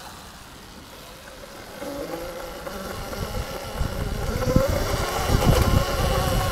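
Electric dirt bike motor whining, its pitch climbing as the bike pulls away and gathers speed from about two seconds in, over a low rumble.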